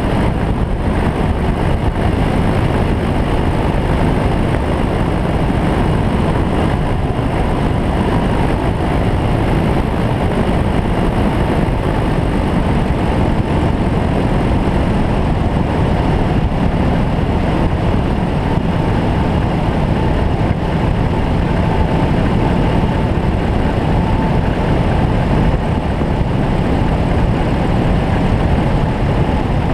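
Bautek Skycruiser microlight trike's engine and propeller running steadily in flight, mixed with the rush of airflow over the microphone.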